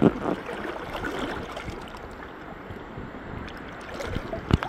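River water rushing and gurgling, with a knock at the start and another sharp one near the end.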